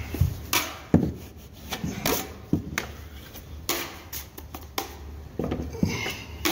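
Steel drywall taping knife scraping and clacking against a mud pan and the wall as joint compound is spread: about a dozen sharp, irregular scrapes and knocks.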